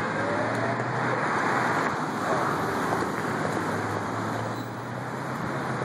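Steady noise of car traffic passing on a busy city street.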